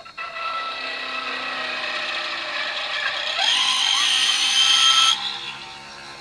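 Foredom flexible-shaft rotary tool running a small circular slotting cutter into the end of a pipe stem, a steady whine with overtones. It cuts in harder and gets louder and brighter past the middle, then eases off and fades near the end as the slot is finished.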